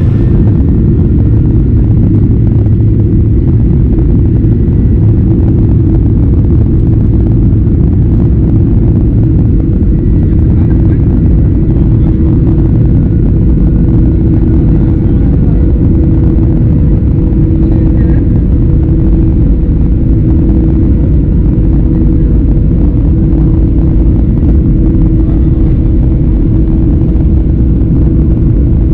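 Cabin noise of a Boeing 737-800 in flight or on the takeoff run, with its CFM56-7B jet engines running: a loud, steady rumble with a constant low hum.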